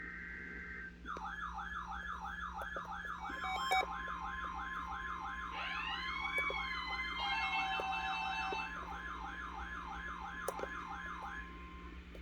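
Electronic alert siren warbling up and down about three times a second. A steady high tone joins it a few seconds in, with other beeps and rising tones layered over it. This is an emergency alarm sounding just ahead of a tornado warning.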